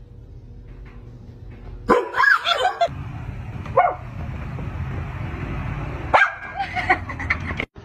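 Short bursts of barking about two seconds in, near four seconds and again from about six seconds: a person barking at a pit bull, and the dog's own barks and yips in reply.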